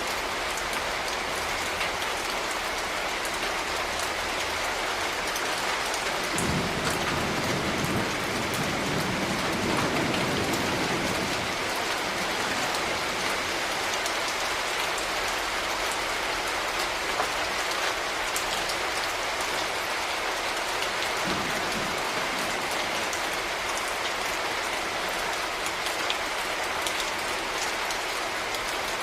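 Steady rain falling, with many individual drops ticking through the hiss. A low rumble swells about six seconds in and fades out around eleven seconds.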